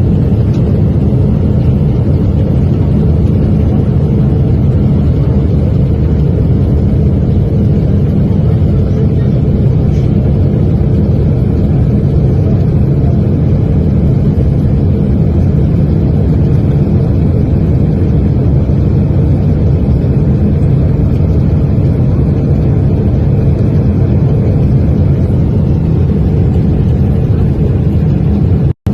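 Loud, steady low roar of a Boeing 777 airliner in flight, an even rumble with no change in pitch, that drops out abruptly for an instant near the end.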